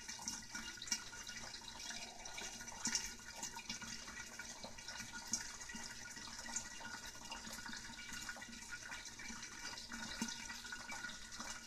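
Hot oil sizzling and crackling around unpopped popcorn kernels in a wok, with scattered small ticks. The kernels are heating up but have not started popping yet.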